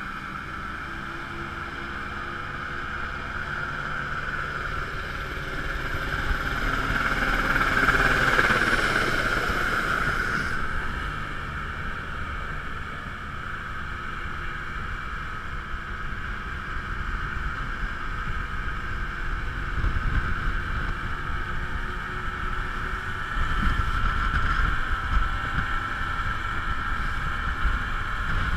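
Rigid inflatable lifeboat under way, its engine running steadily over water and wind noise. The sound swells about eight seconds in and eases a couple of seconds later, and a heavier low wind rumble on the microphone builds near the end.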